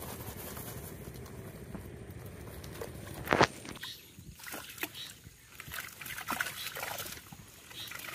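Collapsible ring trap net being dunked and swished in shallow muddy water: irregular sloshing and splashing. A sharp, loud hit comes about three and a half seconds in, after a steady low rumble.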